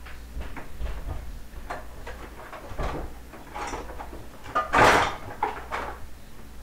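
Kitchen clatter: dishes and other kitchen items being handled and set down on a counter, a string of short knocks with one louder bang about five seconds in.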